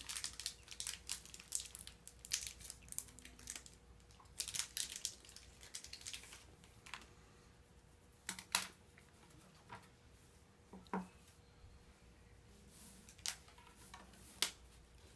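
A plastic candy-bar wrapper being torn open and crinkled, in quick bursts of rustling. Then a few separate sharp taps and clicks as things are handled on the tabletop.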